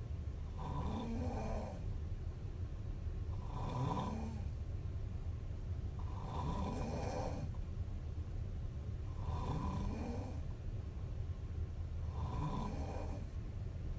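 A young woman snoring in a slow, even rhythm: about five snores, one every three seconds or so, each about a second long with a pitch that rises and falls. A steady low hum runs underneath.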